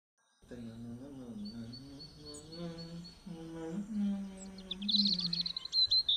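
A slow, wordless hummed melody of long held notes with gentle slides, starting about half a second in, with birds chirping over it; a quick run of bird chirps near the end is the loudest sound.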